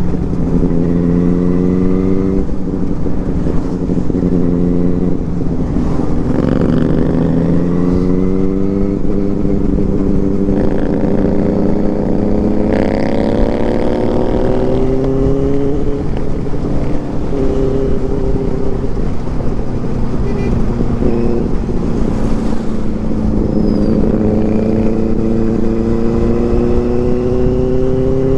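Benelli 600i inline-four motorcycle engine accelerating through the gears while riding, its pitch climbing and dropping back at each upshift several times, then holding steadier before climbing again near the end, over a steady low rumble of wind and road.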